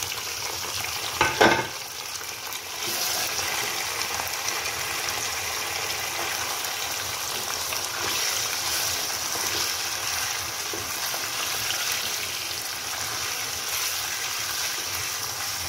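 Raw boneless chicken pieces sizzling in hot oil with fried onions and whole spices in a nonstick wok, stirred with a spatula as they start to sear. A single louder brief knock about a second and a half in.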